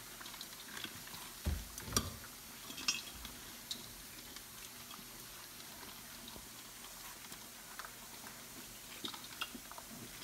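Five-week-old Labrador puppies eating from a shared metal food dish: scattered light clicks and taps against the bowl, with a couple of louder knocks around two seconds in.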